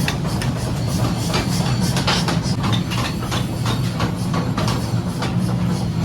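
Steady low machine drone with a rapid, irregular clatter of metal knocks and clicks on top, several a second.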